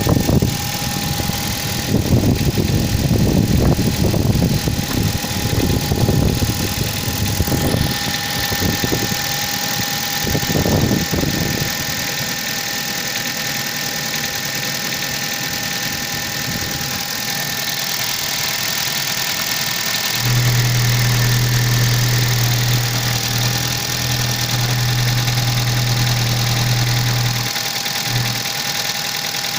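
Hyundai Solaris engine idling from a cold start, with the knock that shows when the engine is cold. About twenty seconds in, a loud steady low hum joins for roughly seven seconds, then stops.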